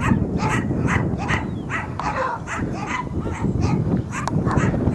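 A dog barking rapidly and repeatedly, about three short barks a second, over a steady low background noise.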